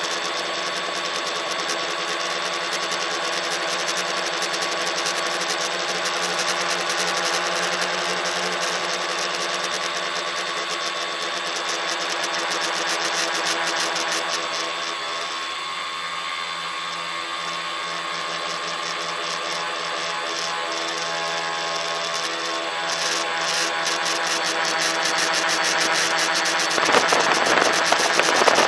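Tricopter's three electric motors and propellers whining steadily, heard up close from the phone riding on the craft. The tone shifts and dips a little about halfway through as the throttle changes, and a rushing noise builds near the end.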